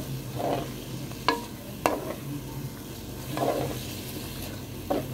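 A spoon stirring chicken pieces through yogurt masala in a pot over a soft sizzle, with three sharp clacks of the spoon against the pot.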